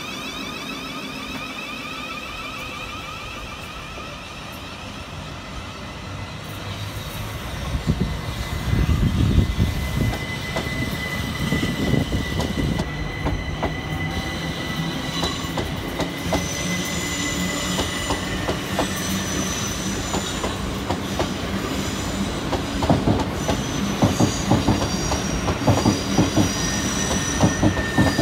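A Southern Class 377 Electrostar electric multiple unit runs close past along the platform, its wheels clicking over rail joints amid a high-pitched wheel squeal, getting louder from about seven seconds in. In the first few seconds the rising, stepped whine of a departing Thameslink Class 700's traction motors fades away.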